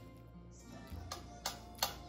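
Soft background music; about a second in, a beat of crisp ticking clicks, roughly three a second, comes in.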